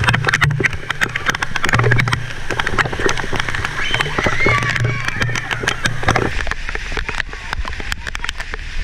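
Heavy rain pattering on the camera and splashing on a wet court: a dense spray of sharp drop hits, with children's shouts and squeals. A low steady hum runs underneath and stops about six seconds in.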